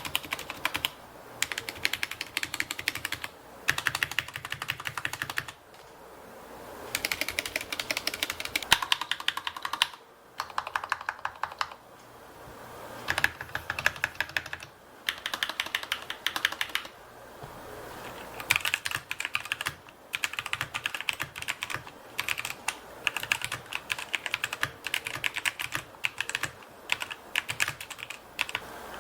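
Typing on a budget mechanical keyboard: runs of rapid keystroke clicks lasting a second or three each, with short pauses between them.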